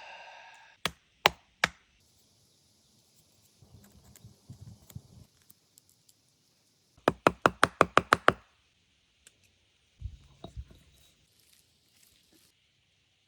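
Sharp knocks: three spaced strikes about a second in, then a quick run of about ten strikes a few seconds later. A duller thump follows near the end.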